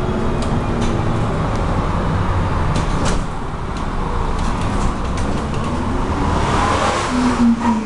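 MAZ-107 city bus heard from inside while driving: steady engine and road noise with scattered rattles and clicks from the body and fittings, and a burst of hissing near the end.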